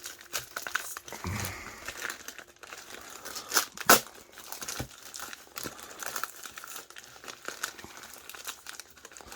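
Parcel packaging crinkling and tearing as it is pulled open, a steady run of irregular crackles with a louder rip about four seconds in.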